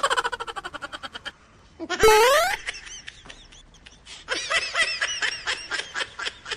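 Comedy laughter sound effects laid over the clip. A quick burst of rapid laughter falls in pitch in the first second or so, a short rising cartoon glide comes about two seconds in, and a longer run of laughter starts about four seconds in.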